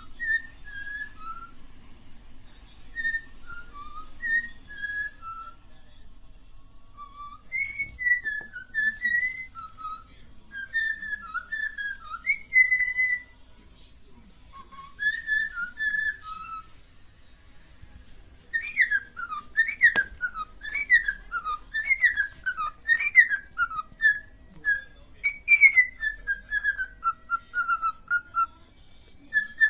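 Pet parrot whistling a string of short, clear notes; about two-thirds of the way through it speeds up into a louder run of quick falling whistles.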